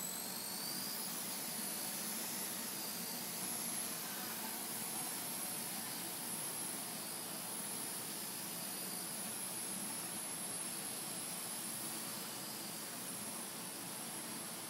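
High-pitched whine of a tiny homemade toy helicopter's motor and rotor, built from eyeglass parts. It rises in pitch in about the first second, then holds with a slight waver over a steady hiss.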